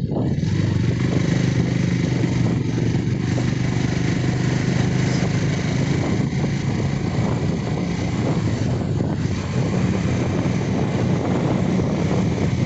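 Motorcycle engine running at a steady pitch while riding along a road, with a constant hiss of wind and road noise over it.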